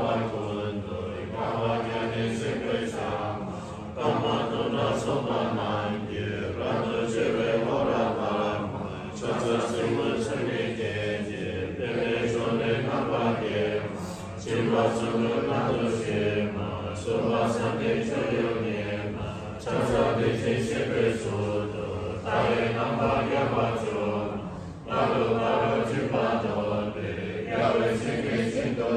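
A group of monks and lay practitioners chanting a Tibetan Buddhist puja liturgy together in unison, in steady phrases broken by short pauses for breath every few seconds.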